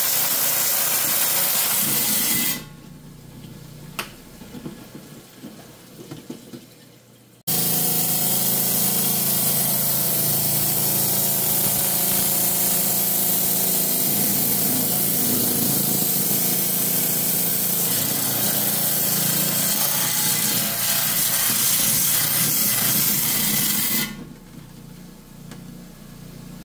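A 10-inch Hi-Tech lapidary saw cutting a slab off a chalcedony and jasper rock, a loud steady grinding hiss over the motor's hum. The cutting noise drops off suddenly about two seconds in, leaving a much quieter stretch with a few light clicks, comes back about seven seconds in, and drops off again near the end.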